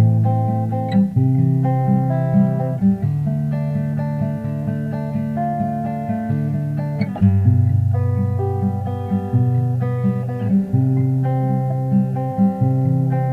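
Background music: plucked acoustic guitar playing a steady, even melody over bass notes.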